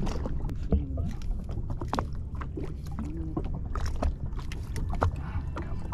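Water lapping against a drifting jet ski's hull, with wind on the microphone, and scattered clicks and knocks from handling the fishing rod, reel and catch.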